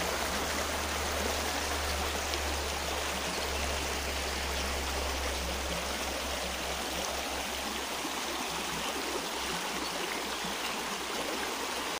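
Shallow mountain river running over stones and riffles: a steady rush of water.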